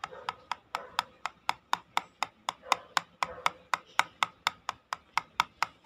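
Plastic toy knife chopping a plastic toy bell pepper on a plastic toy cutting board: quick, even taps at about four a second.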